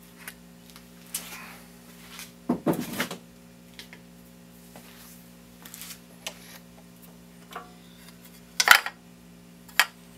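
Metal handling sounds on a bench lathe with its motor off: a few knocks and clinks as the magnetic-base dial indicator is moved away and the aluminium disc in the chuck is turned by hand, the loudest a clatter about two and a half seconds in and a sharp knock near the end, over a steady low hum.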